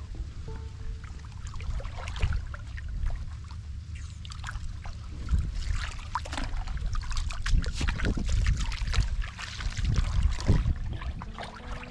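Shallow muddy water sloshing and splashing as someone wades through it and jabs a metal crab hook into the water and mud, with many short splashes and drips that get busier about five seconds in. A steady low rumble runs underneath.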